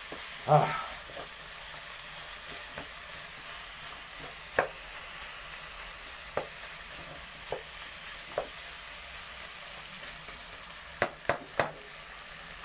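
Pork pieces and spices sizzling in a non-stick pot as a wooden spatula stirs them, the spatula now and then knocking against the pot. Three quick knocks come close together near the end.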